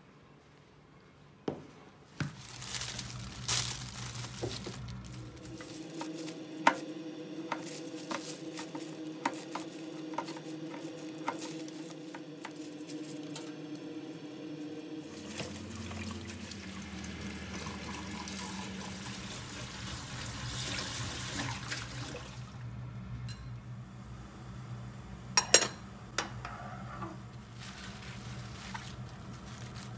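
Water running from a kitchen tap into a stainless-steel sink while spinach is rinsed and handled, with scattered clicks and knocks throughout and a couple of sharp knocks near the end.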